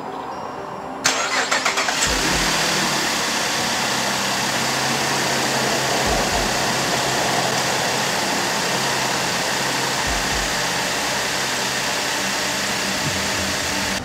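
2010 Cadillac CTS's 3.0-litre V6 engine being started after its water pump replacement: about a second in the starter cranks briefly, the engine catches, and it settles into a steady idle.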